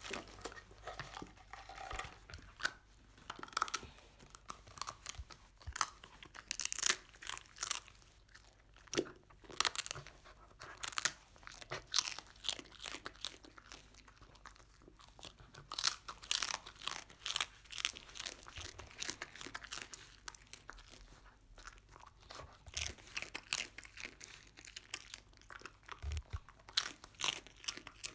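A dog chewing and crunching pieces of dry, crisp scorched-rice crust (nurungji). Irregular sharp crunches come in quick runs with short pauses between bites.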